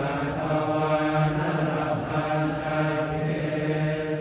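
A group of voices chanting a Buddhist chant in unison on one steady low pitch.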